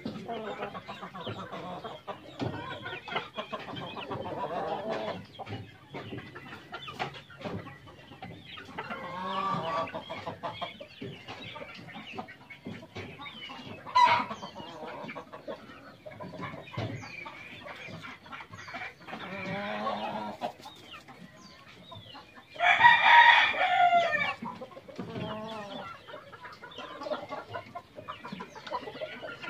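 Gamefowl chickens clucking on and off, with a rooster crowing loudly once, about 23 seconds in. There is a single sharp click about halfway through.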